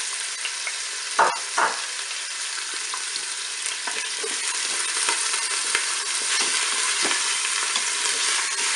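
Beef roast and chopped onions sizzling steadily in hot olive oil in a Cookeo multicooker's pot on its browning setting, with a wooden spatula moving through the pot. Two brief knocks about a second and a half in.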